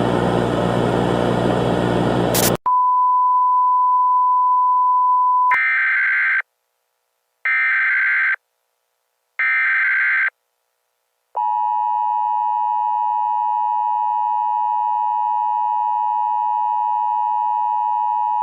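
A loud burst of static cuts to a steady single test tone for about three seconds. Then come three short data bursts about a second apart, the Emergency Alert System SAME header. About eleven seconds in, the EAS two-tone attention signal starts and holds steady, heralding an emergency broadcast.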